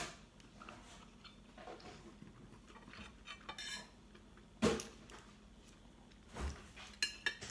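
Knife and fork clinking and scraping against a plate while cutting a piece of beef roast: scattered light clicks, with the loudest sharp clink a little past halfway and a quick run of clinks near the end.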